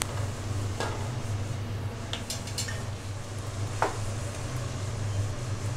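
Sliced onions frying gently in oil in a stainless steel pot, a soft steady sizzle, with a few sharp clinks of a metal ladle against the pot. A steady low hum runs underneath.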